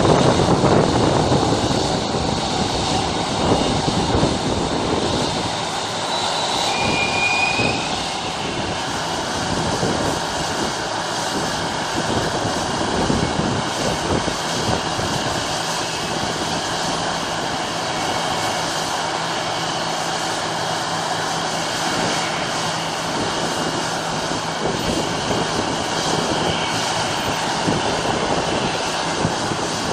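Air France Airbus A340's four jet engines running at low thrust as the airliner taxis, a steady whine over a rumble that is loudest in the first few seconds. A short high whistle sounds about seven seconds in.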